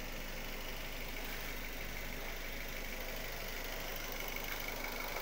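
A car engine idling steadily, an even hum with no change in pace.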